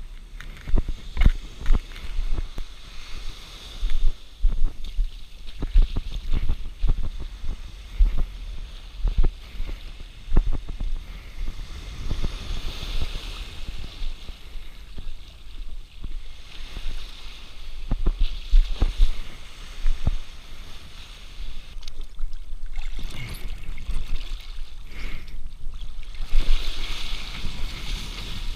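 Wind buffeting an action camera's microphone in irregular low gusts, with water sloshing and rushing as the kitesurfer gets into the sea and rides. The rushing grows louder near the end.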